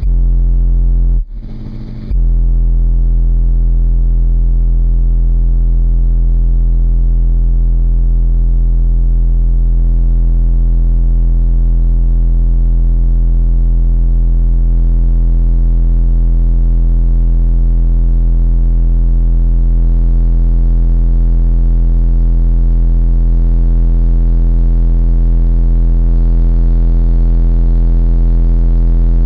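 A loud, steady low bass tone played through car audio subwoofers driven by two Sundown SAZ-2500 amplifiers, a droning note with distortion. It cuts out briefly about a second in, then holds steady.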